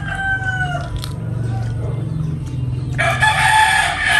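Rooster crowing: one long crow slowly falls and trails off about a second in, and another crow starts about three seconds in.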